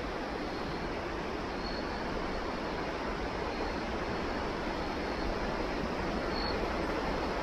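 Small rocky stream flowing steadily over a shallow riffle: an even, unbroken rush of water.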